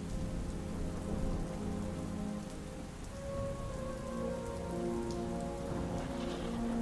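Steady soft rain falling, a continuous hiss with scattered drop ticks, with a slow ambient score of long held notes underneath.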